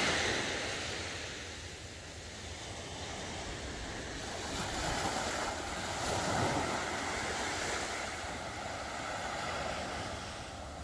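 Small waves breaking and washing up a sandy beach, the surf swelling and easing every few seconds, with wind on the microphone.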